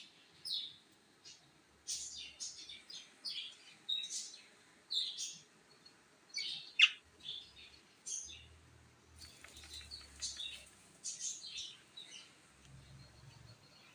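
Parrot calling in short, high chirps and squawks, many in quick irregular succession, with one sharper, louder call about seven seconds in.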